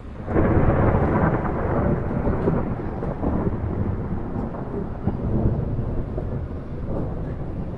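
A thunderclap breaks in suddenly about a third of a second in and rolls on as a deep rumble. It is loudest over the first couple of seconds and then slowly eases without dying away.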